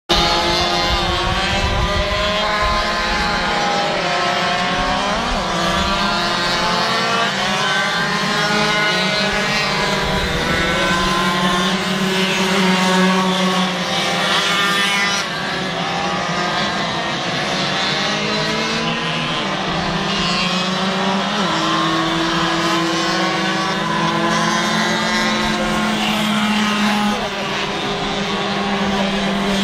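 Several racing moped engines buzzing around a kart track at once, their overlapping high notes rising and falling as the riders accelerate and ease off through the corners.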